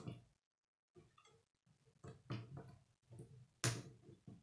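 K'nex plastic rods and connectors clicking and rattling as they are handled and snapped together, in short scattered clicks with the sharpest one near the end.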